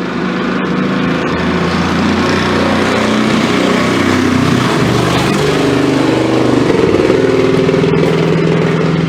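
A Ford Ranger's six-cylinder engine being revved hard, its pitch rising and falling, and running rough, taken to be firing on maybe two of its six cylinders.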